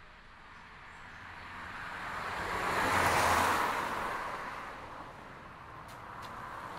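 A car driving past outside: tyre and engine noise swells to a peak about three seconds in and fades away, and another vehicle's noise begins to rise near the end.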